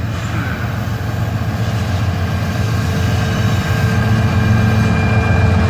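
Approaching diesel locomotive of a CSX freight train: a low engine rumble that grows gradually louder, with thin steady high tones joining about three seconds in.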